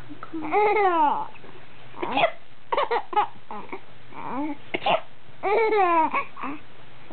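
High-pitched laughing at someone's sneezing: two drawn-out bursts of falling 'ha' sounds, about a second in and near the end, with short sharp vocal sounds in between.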